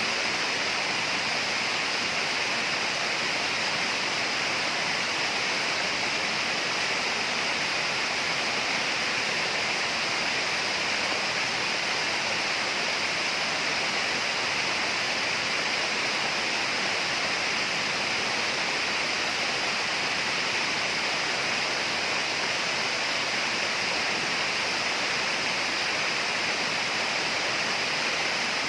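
Steady tropical rainforest ambience: an unbroken rushing hiss with a constant high, shrill band in it, unchanging throughout.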